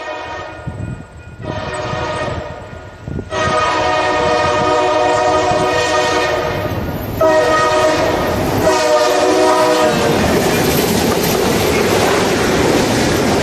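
A locomotive's multi-chime air horn sounds a chord in several blasts, the longest about four seconds, played back pitched down. Near the end the horn gives way to the steady noise of the passing train's cars and wheels.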